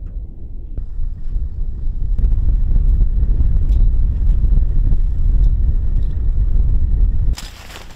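Wind buffeting the microphone: a loud, uneven low rumble that cuts off abruptly near the end.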